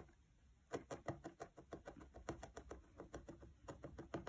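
Felting needle stabbing repeatedly through wool and felt into a foam felting pad: faint, quick pokes at about six or seven a second, starting a little under a second in.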